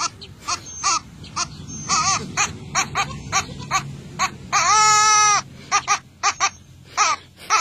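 Black goat kid bleating over and over: many short bleats in quick succession, with one long, louder bleat about five seconds in.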